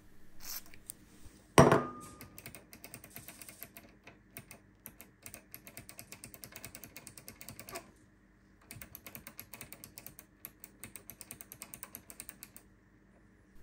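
A small front-panel push-button switch, the tone defeat button of a NAD C 740 receiver, clicked rapidly over and over to work freshly sprayed contact cleaner into its oxidised contacts, which had been crackling when switched. A single sharp knock is the loudest sound, about a second and a half in.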